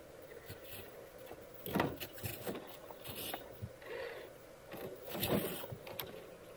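Traxxas TRX-4 Defender RC crawler climbing over concrete rubble: a faint steady electric whine from its drivetrain, broken by several short scrapes and crunches as the tires grind and slip on the concrete.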